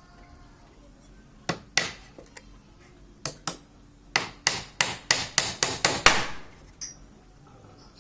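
Hammering: two pairs of sharp blows, then a quick run of about eight blows lasting around two seconds, the last one ringing briefly.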